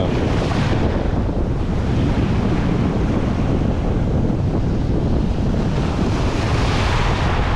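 Wind buffeting the microphone over waves breaking on a Great Lakes beach, a steady low rumble with surf hiss that swells near the end.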